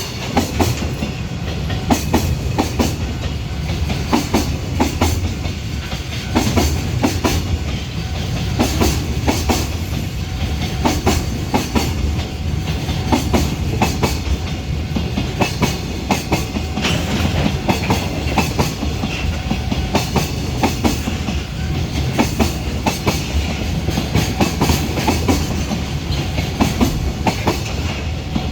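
Container freight train rolling past, its wagon wheels clattering over rail joints in a steady, repeating clickety-clack over a continuous rumble.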